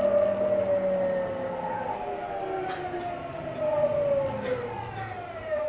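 Tokyu 9000 series electric train's VVVF inverter and traction motors heard from inside a motor car, several tones falling slowly in pitch as the train slows, with running noise beneath.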